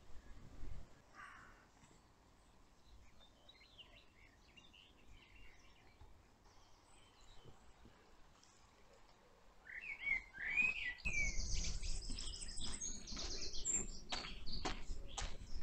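Birdsong, faint at first, then louder from about ten seconds in, with chirping calls and a rapid high trill. Under it comes a low rumble from about eleven seconds, and a few sharp clicks near the end.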